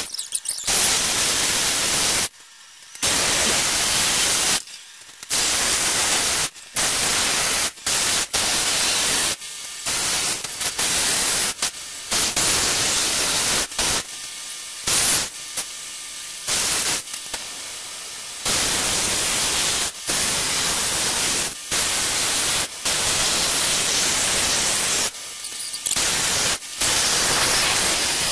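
Electric jigsaw cutting through a wooden board, its blade rasping loudly in stretches of one to three seconds that stop and restart many times.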